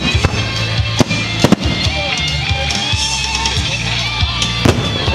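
Fireworks display going off: several sharp bangs, two in quick succession about a second and a half in and another near the end. Music plays continuously underneath.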